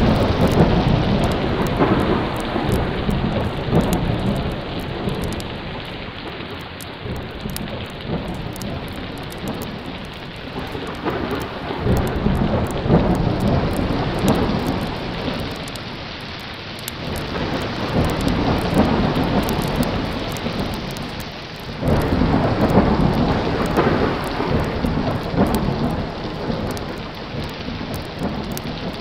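Thunderstorm sound effect: steady heavy rain under several long rolls of thunder that swell and fade, one breaking in suddenly about three-quarters of the way through.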